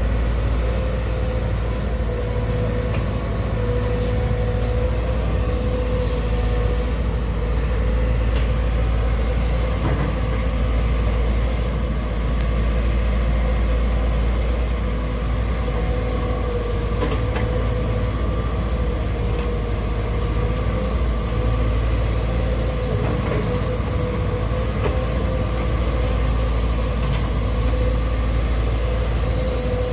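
A large machine running steadily, with a low rumble and a constant mid-pitched hum that holds its pitch throughout.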